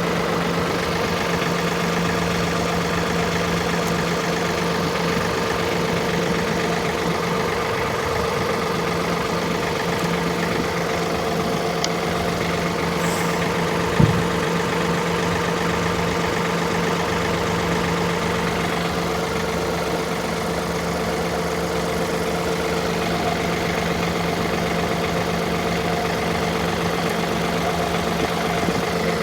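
Ride-on tractor engine running at a steady idle, its note unchanging. A single short knock sounds about halfway through.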